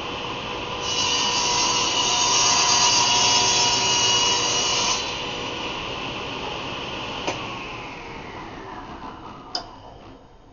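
Table saw running, with its blade cutting through a wooden workpiece for about four seconds. The saw is then switched off, with a click, and the motor winds down with a falling whine. A sharp knock comes near the end.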